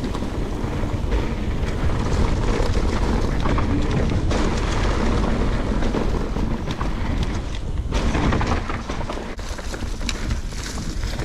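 Wind buffeting the microphone of a camera on a moving mountain bike, a steady low rumble with tyre noise and scattered clicks and rattles, easing slightly about nine seconds in.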